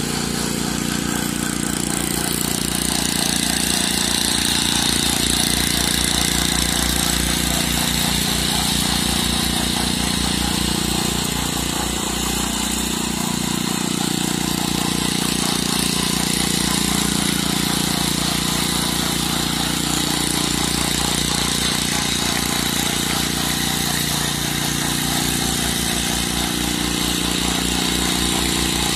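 Small engine of a walk-behind concrete slab vibrator running steadily, with a rapid low pulsing from the vibrating sled as it is pulled over fresh concrete to settle it and drive out voids.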